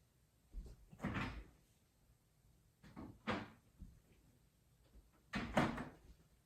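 Four short knocks and scrapes of household things being handled, like cupboard doors or drawers, the last about five seconds in the loudest.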